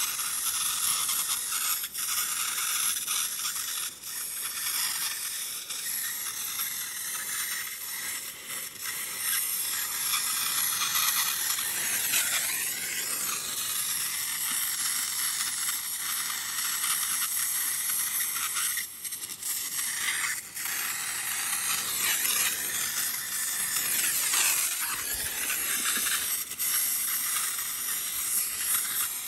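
Oxy-fuel brazing torch flame hissing steadily as it heats a copper refrigerant line joint for brazing, dipping briefly twice about two-thirds of the way through.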